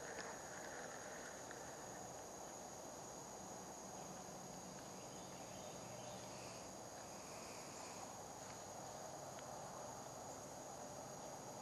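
Faint, steady high-pitched drone of insects, crickets or a similar chorus, over a soft even outdoor hiss, with a few faint small ticks.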